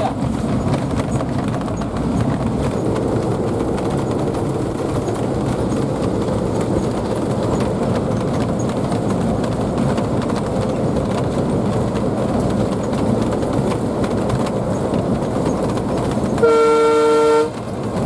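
Inside the cab of an Alco WDM-3D diesel locomotive running at speed: steady engine and wheel-on-rail rumble, then near the end a loud blast of the locomotive's horn about a second long.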